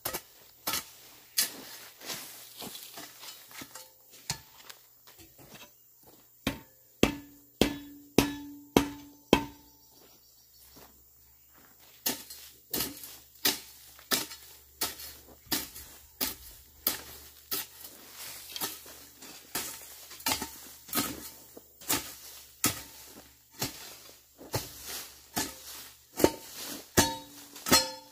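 A hoe chopping into soil and weeds in steady repeated strokes, a little faster than one a second, as ground is cleared by hand. Several strokes ring briefly and metallically, and there is a short pause partway through.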